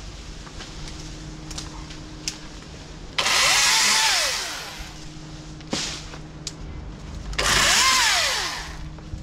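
Husqvarna T536LIXP battery top-handle chainsaw cutting through small leafy branches in two short bursts. Each time the motor spins up, holds briefly and winds down.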